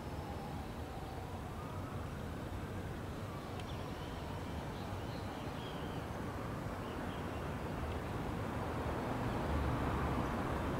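Outdoor city ambience: a steady rumble of distant traffic that grows a little louder near the end, with a faint rising-and-falling tone in the first few seconds.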